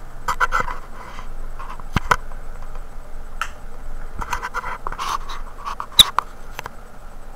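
Handling noise: short scratching and rubbing rustles broken by several sharp clicks, two close together about two seconds in and the loudest about six seconds in.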